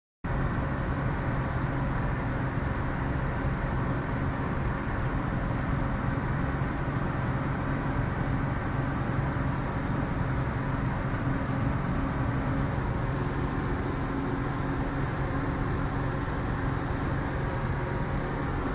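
Steady rushing noise of rain together with the low, even hum of a vehicle's engine running, unchanging throughout.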